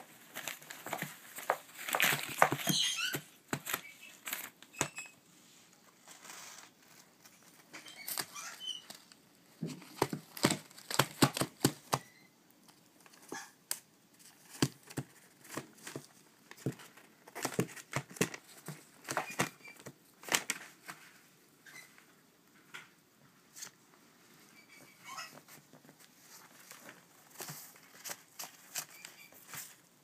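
Newspaper and paper towel crinkling and rustling under African grey parrot chicks as they shuffle about on it, in irregular clusters of crackles and light taps.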